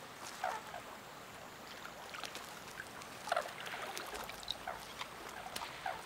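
Faint, irregular soft wet patters and little splashes of a jacana chick's feet stepping across floating prickly water-lily leaves in shallow water, a few seconds apart.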